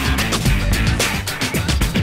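Loud rock music soundtrack with a fast, driving drum beat and guitar.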